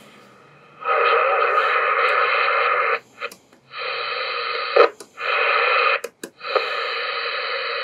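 Sears Roadtalker 40 SSB CB radio receiving on lower sideband, its speaker giving out thin, band-limited static hiss. The hiss cuts out and comes back three times with short clicks as the front-panel controls are worked.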